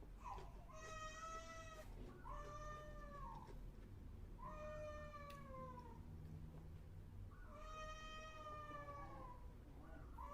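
A cat meowing over and over: about five drawn-out meows, each around a second long, several dropping in pitch at the end.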